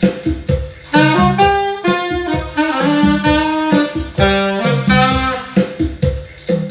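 Jazz backing track in cha-cha rhythm: a saxophone plays a melodic phrase over a steady percussion beat, starting about a second in and dropping out near the end, leaving the rhythm section.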